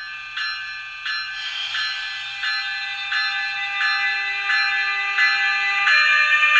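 Simulated locomotive bell from the DCC sound decoder of an Atlas N-scale NJ Transit ALP-45DP, played through the model's tiny speaker, ringing steadily about once every 0.7 seconds. About a second and a half in, a steady electric-mode motor whine joins it and steps down in pitch near the end.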